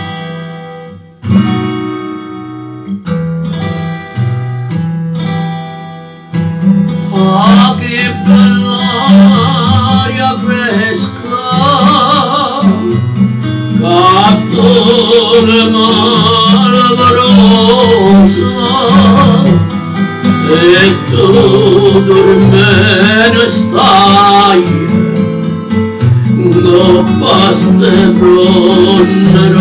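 Background music led by guitar: spaced, ringing chords at first, then about six seconds in a louder, fuller arrangement comes in with a wavering melody line over it.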